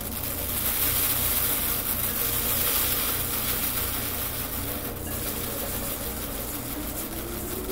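Steady hiss of small amaranth seeds and chaff sliding and spilling across a tray, over a low steady hum; a single rising tone comes in near the end.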